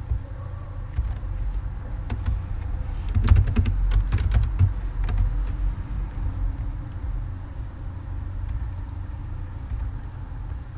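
Typing on a computer keyboard: quick runs of key clicks, thickest about three to five seconds in, then only a few scattered clicks, over a steady low rumble.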